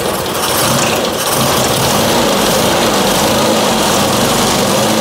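Triumph Spitfire 1147cc four-cylinder engine running at a fast idle, its pitch wavering unevenly as it starts to run rough. The owner has ruled out fuel delivery and the spark plugs as the cause and does not know what is causing it.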